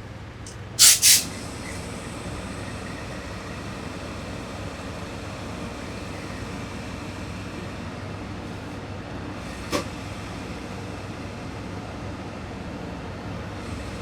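Steady room hum, broken by two brief, sharp, rasping noises close together about a second in and a single small click near ten seconds.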